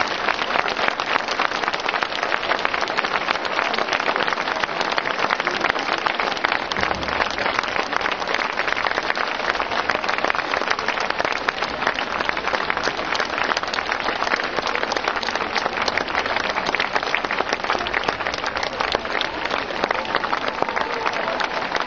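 Large audience applauding: dense, steady clapping from many hands.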